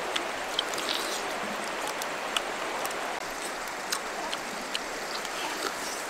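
A shallow river runs steadily, with scattered sharp clicks and wet smacks from pineapple being bitten and chewed.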